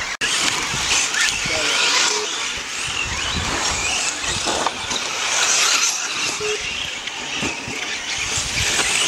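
Radio-controlled off-road cars racing on a dirt track, their motors giving a high-pitched whine that rises and falls as they accelerate and slow. The sound drops out for an instant just after the start.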